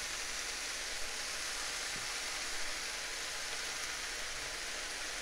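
Freshly washed spinach sizzling steadily in a hot frying pan with butter, onions and garlic: the water on the leaves hissing as it hits the hot fat.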